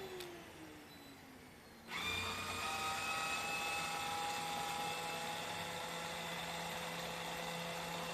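Vacuum cleaner motor winding down with a falling whine, then switched on again about two seconds in and running with a steady, high, drill-like whine.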